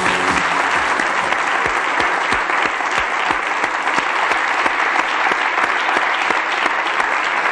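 Studio audience applauding, with single claps close by standing out sharply from the general applause.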